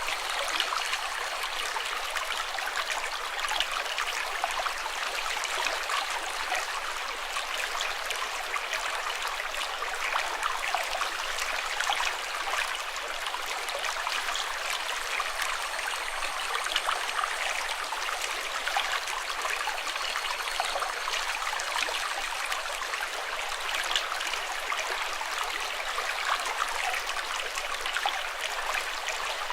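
Running water, a steady trickling and splashing rush with no change throughout.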